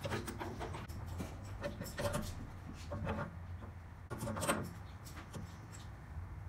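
Pliers clicking and scraping on the copper tube fittings under a gas water heater's control valve as they are tightened: a few short separate knocks over a low steady hum.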